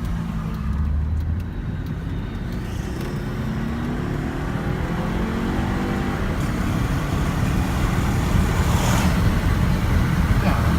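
2015 Volvo S60's turbocharged engine accelerating under hard throttle, its revs climbing in pitch and then running louder toward the end. This is the full-throttle condition in which the owner hears an odd turbo squeal that he says doesn't sound normal.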